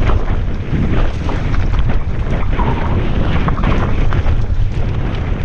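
Wind rumbling over the camera microphone during a mountain-bike descent on a trail, with scattered knocks and rattles from the bike and its tyres on the rough ground.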